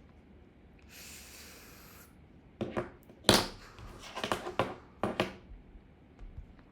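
A soft hiss lasting about a second, then a run of sharp clicks and knocks, the loudest a little past three seconds in.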